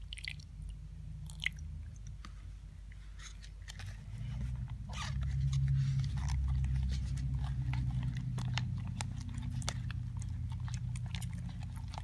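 Sticky, wet squelching and clicking of glue-and-borax slime being stirred and worked by hand, many short clicks in a row. A low rumble joins in from about four seconds in.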